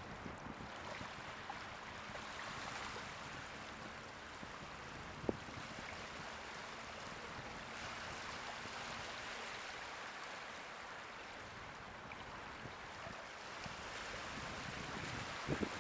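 Caspian Sea waves washing on the shore, a steady wash that rises and eases. There is a single sharp click about five seconds in and a couple of knocks near the end.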